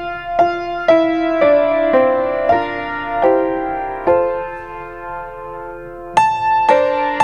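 Piano playing slow music, notes struck about every half second; a chord is held and fades in the middle before a brighter phrase begins near the end.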